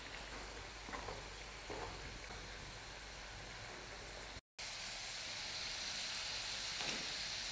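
Arrowroot-coated potato sticks deep-frying in hot oil in a wok: a steady, soft sizzling hiss of bubbling oil. It drops out for a moment about four and a half seconds in and comes back slightly louder.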